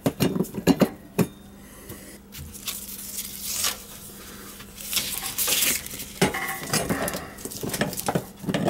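Sheet-metal draft hood of a gas water heater being handled and seated on the heater's top: light metal clinks and rattles in the first second, bouts of scraping in the middle, and more clanking near the end.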